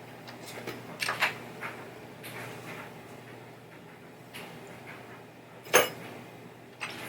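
Scattered clicks and light knocks of small metal and plastic parts and hand tools being handled during playfield disassembly, with a cluster about a second in and one louder knock near the end.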